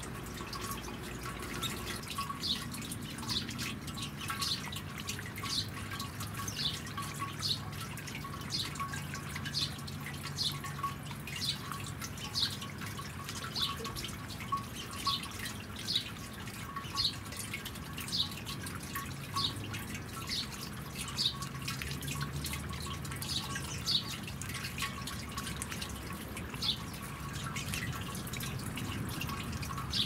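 Water from a garden bird-bath fountain dripping into the basin: a little more than one drip a second, irregular, from about two seconds in until near the end, over a low steady hum.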